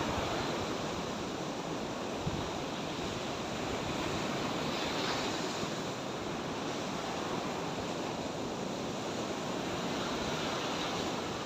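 Sea surf washing steadily onto the shore, a continuous rush of waves, with some wind on the microphone.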